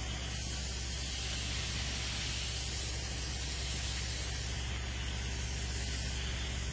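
Fire hose spraying water with a steady hiss, over the steady low hum of a fire truck's engine.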